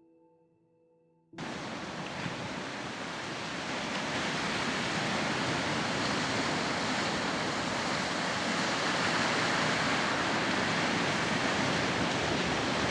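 A faint tail of ringing musical tones, then about a second and a half in a steady hiss of falling rain cuts in and keeps on, growing slightly louder.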